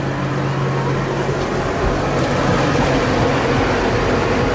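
New Holland T7-210 tractor's six-cylinder diesel engine running steadily under load while ploughing, heard from inside the cab as an even drone with a low hum.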